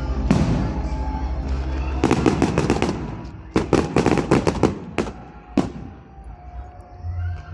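Fireworks going off: a single bang just after the start, then rapid runs of crackling bangs from about two to five seconds in, and two more single bangs shortly after.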